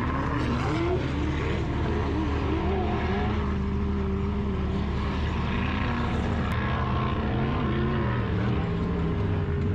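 Several vehicle engines running at once, their pitches wavering up and down as they rev, over a steady low rumble.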